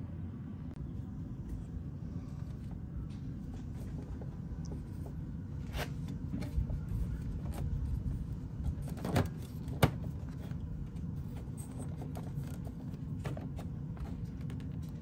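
Wiring and plastic trim being handled: a few rustles and clicks, the loudest a single sharp click near ten seconds in, over a steady low rumble.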